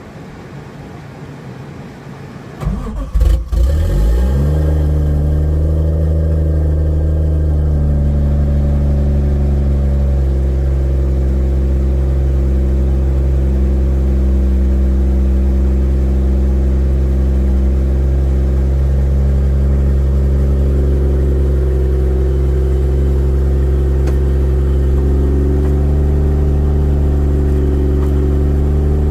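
Turbocharged Lexus IS200's 1G-FE straight-six cranking briefly and catching about three seconds in, then idling steadily on its newly fitted coil packs.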